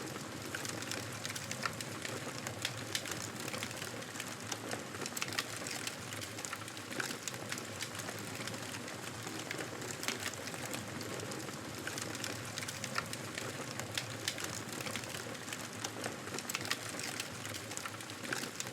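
Fire crackling in a fireplace: a steady soft hiss with frequent small pops and snaps, a few of them louder.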